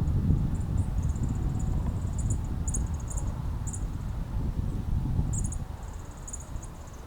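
Low rumble of wind on the microphone, with insects chirping in short, high, pulsing trills that come and go throughout.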